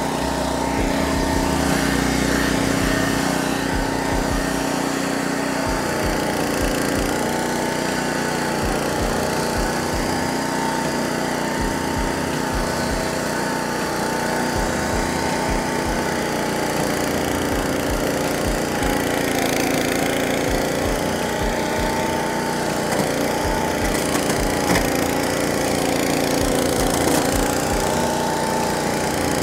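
Caiman Rolo 70H flail mower's Honda petrol engine running under load while mowing tall grass, its pitch dipping briefly every few seconds as it takes the load and then recovering. Scattered short low thumps sound beneath it.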